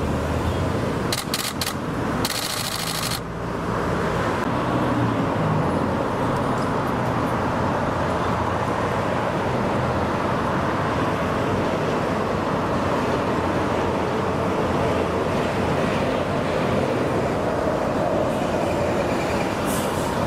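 Steady street traffic noise, with a few clicks about a second in and a short hiss lasting about a second just after two seconds.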